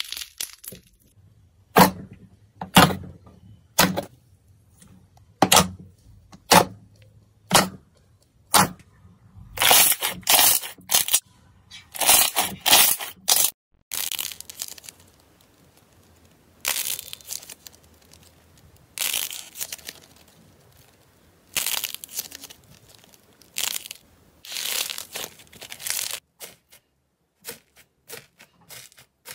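Hands squeezing pieces of porous foam, a crisp crunching crackle with each squeeze, about once a second at first and then in quicker runs. About halfway through it changes to longer crackling squishes every couple of seconds as squishy balls are pressed, and near the end to small pops of foam-bead slime being dug into.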